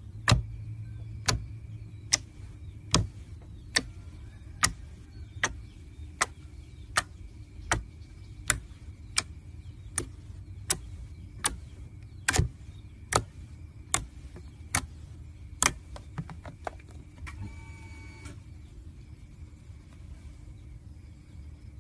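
Thick glossy slime popping sharply each time a finger pokes into it, about one pop a second, over a low steady hum; the pops stop about sixteen seconds in.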